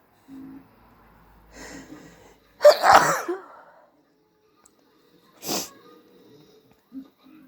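A person sneezing once, loudly, after a quick breathy intake. A second short, sharp breath sound comes about two and a half seconds later.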